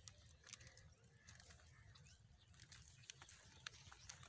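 Faint, scattered clicks and rustles from goats milling about close by, over a low rumble; otherwise near silence.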